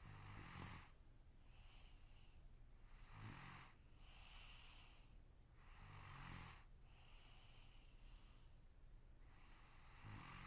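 A sleeping person snoring, quietly and in a steady rhythm: four snores about three seconds apart, each with a low buzz, and a softer hissing breath out between them.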